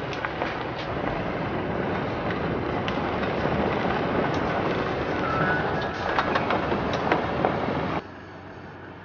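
Vehicle driving on a rough dirt road: steady road and tyre noise, with many small clicks and rattles. About eight seconds in it cuts off, giving way to a much quieter steady hiss.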